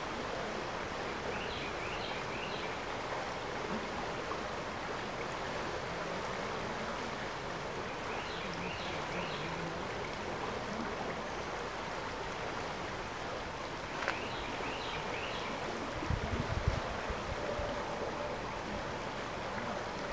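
Steady rushing of a creek running high with rainfall runoff. A few short high chirps come and go, and low rumbles of wind on the microphone come near the end.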